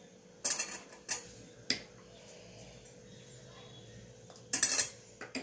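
A plastic spoon knocking and scraping against a glass dish and a steel bowl as paste is scooped and added to batter: three short knocks in the first two seconds, then a louder brief clatter near the end.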